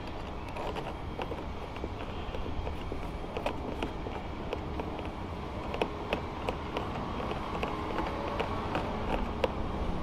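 Light, scattered clicks and taps of hands working at a car's rear door, over a steady low rumble.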